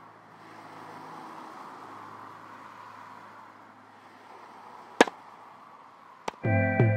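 A tennis racket striking a ball once with a sharp crack about five seconds in, over a steady background hiss, followed by a fainter knock a little after six seconds. Guitar music starts just before the end.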